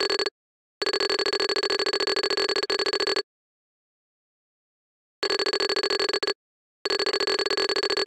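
Cartoon 'talking' sound effect: a rapid string of same-pitched electronic beeps that stands in for a character's voice while speech bubbles appear. It comes in runs, about two and a half seconds long, then about one second, then nearly two seconds, with dead silence between them.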